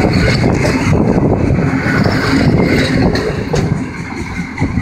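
Passenger coaches rolling past at close range, their wheels knocking and rumbling over the rails, getting quieter near the end as the last coach goes by.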